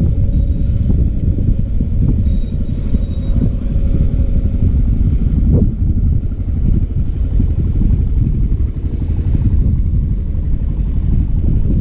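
Wind buffeting the microphone over open sea: a loud, steady low rumble that keeps rising and falling unevenly.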